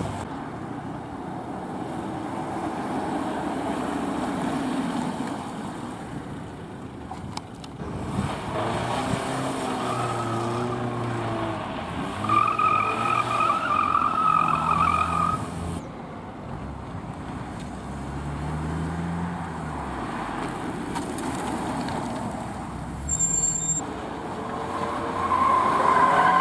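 Classic saloon cars, a Polski Fiat 125p and then a Mercedes-Benz W126, driven through a tight cone course. The engines rev up and ease off through the turns, with tyres squealing for about three seconds around the middle and again near the end.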